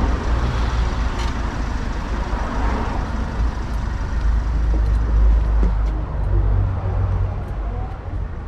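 Steady outdoor background rumble, deep and uneven, like road traffic mixed with wind on the microphone; no engine of the parked cars is running.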